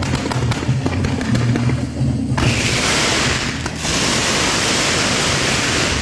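Fireworks going off: rapid crackling pops, then from about two and a half seconds in a steady loud hiss of burning pyrotechnics, dipping briefly near the middle.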